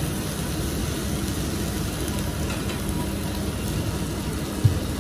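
Steady low rumble of restaurant background noise with a faint hiss over it, and a single soft knock near the end.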